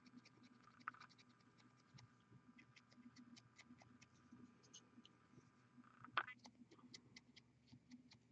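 Near silence over a low steady hum, with faint scattered ticks and scratches from fingers and a fine paintbrush handling a plastic miniature. There is a click about a second in and a sharper, louder click a little after six seconds.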